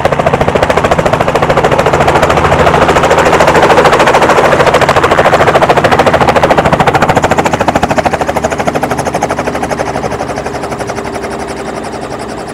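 Small two-bladed helicopter's rotor beating in a fast, even chop over a steady engine hum as it sets down on its skids and keeps turning on the ground. The chop is loudest midway and eases off near the end.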